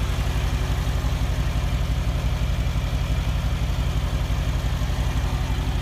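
Mercedes-Benz G550's V8 engine idling steadily, a low, even rumble with a fine regular pulse.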